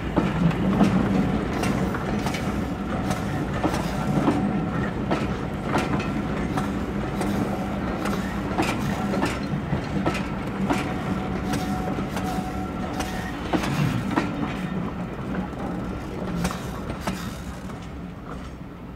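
Passenger train hauled by Class 52 'Western' diesel-hydraulic D1062 running past. Its wheels click over the rail joints, often in pairs, over a steady low hum, and the sound grows quieter near the end as the train draws away.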